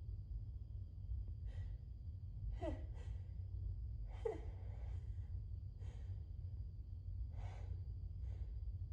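A woman with a head cold breathing in short, breathy gasps and sighs, about one a second, two of them with a brief falling voiced sigh, over a steady low hum.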